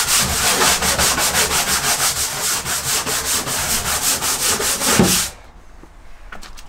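Stiff scrub brush scrubbing the plastic floor of a portable toilet with rapid back-and-forth strokes, several a second, stopping about five seconds in.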